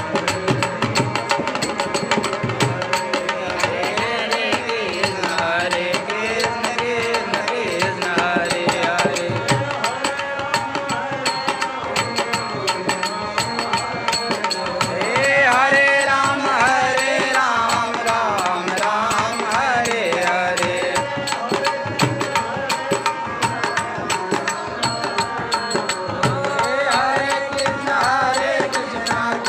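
Hari kirtan: a dholak beaten by hand in a fast, steady rhythm under the sustained notes of a harmonium, with a man's devotional singing coming in and out.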